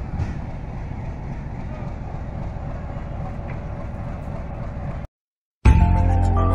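Passenger train coaches alongside at close range: a steady low rumble with faint clicks. It cuts off abruptly about five seconds in, and after a brief silence music begins.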